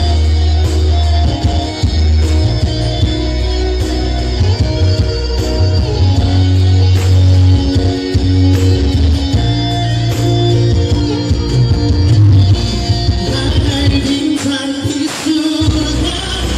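A song with singing and guitar over a strong bass line, playing loudly and continuously.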